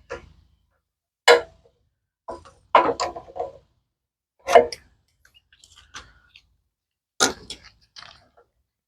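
Tools and metal parts clacking and knocking as a small engine's air filter and carburetor are taken off, with about five sharp separate knocks a second or two apart.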